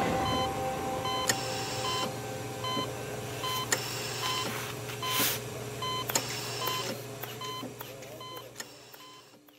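Heart-monitor beeping: a short electronic beep about every 0.8 s over a low steady hum, fading out toward the end. A few faint clicks and a brief hiss about five seconds in.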